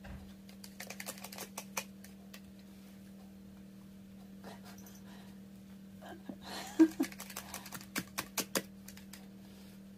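Scattered light clicks and taps in two flurries, about a second in and again from about six to nine seconds, over a steady low hum. A brief low sound just before seven seconds is the loudest moment.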